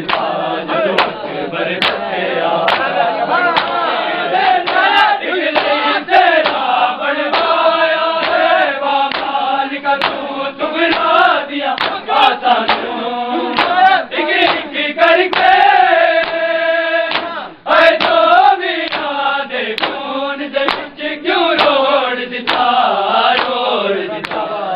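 A group of voices chanting a Punjabi noha (Shia lament) together, with sharp slaps sounding throughout: the mourners' matam, hands beating on chests.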